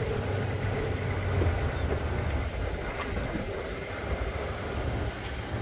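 Car engine idling steadily with a low hum, the running car that supplies the jump through jumper cables.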